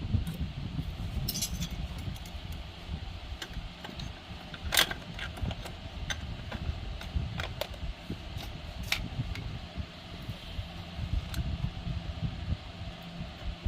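Small metal parts clicking and clinking at irregular intervals as a safe's combination lock is worked on, with a sharper click about five seconds in, over a steady low hum.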